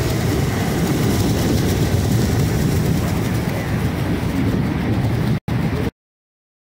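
Steady rush of Niagara's American Falls heard from the water at its base, with wind buffeting the microphone. The sound drops out briefly and then cuts off abruptly shortly before the end.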